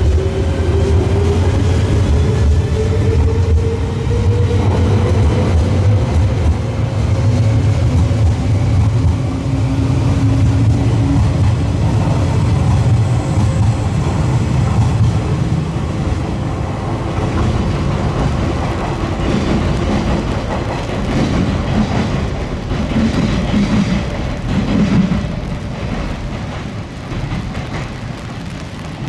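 A 381 series electric express train pulling away: a low rumble of wheels on rail, with the motor and gear whine rising in pitch as it accelerates. In the second half the sound gradually fades as the train draws away, with some clattering of wheels over the track.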